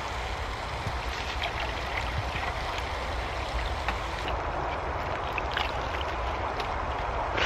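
Water pouring from a bottle into a stainless steel mess-tin cup, a steady trickling splash. About four seconds in the sound thins and softens.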